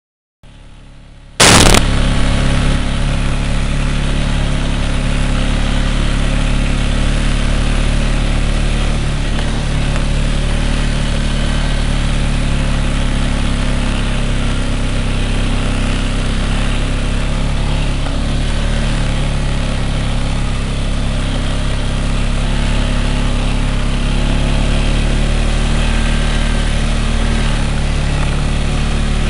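ATV engine running steadily and loud while riding, with even low engine tones and rushing noise over them. The sound cuts in abruptly about a second and a half in, after a moment of near silence.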